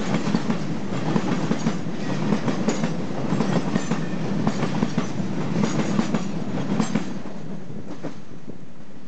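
Freight train wagons rolling past close by: wheels clicking and knocking over the rail joints above a steady rumble. The clatter stops about seven seconds in as the last wagon passes, leaving a steady hiss.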